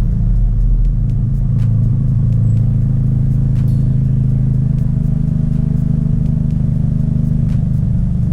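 Dodge Caliber SRT-4's turbocharged four-cylinder engine and loud aftermarket exhaust droning steadily while the car cruises, with a slight rise in pitch a little past halfway.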